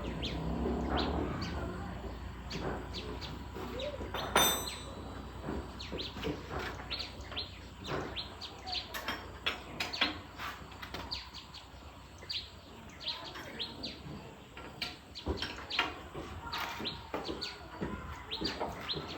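Small birds chirping over and over in short calls, with one sharp knock about four seconds in.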